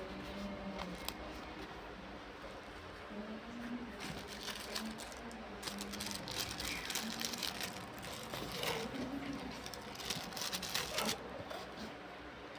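Irregular clicking and rustling of objects being handled, denser from about four seconds in, with faint voices in the background.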